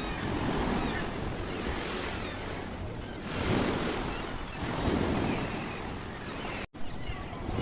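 Sea waves surging and breaking on a rocky shore, swelling and ebbing several times, with wind on the microphone. The sound cuts out for an instant about two-thirds of the way through.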